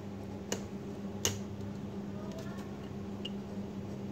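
Plastic LCD bezel of a Dell Latitude E5440 laptop snapping into place on the display lid as it is pressed on. There are two sharp clicks in the first second and a half, then a few faint ticks.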